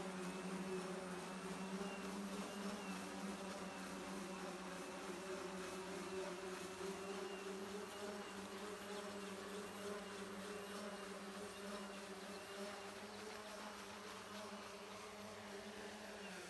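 The electric propulsion propellers of a homemade electric rotating-wing aircraft (Levitator 6) in flight, giving a steady, insect-like buzz at an even pitch. A higher whine within it wavers slightly about once a second, and the buzz fades a little toward the end.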